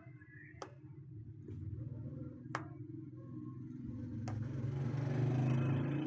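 Three sharp clicks, about two seconds apart, from an Alexandrine parakeet's beak working at a brick wall. Under them runs a low rumble that grows louder over the last two seconds.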